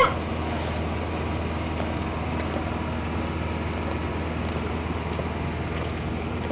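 Steady outdoor background noise with a constant low hum, and faint scattered clicks.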